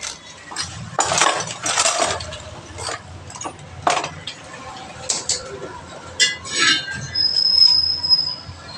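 A car tyre and its steel wheel rim handled and worked by hand: irregular scrapes, knocks and metal clinks. Near the end comes a single high squeak lasting about a second.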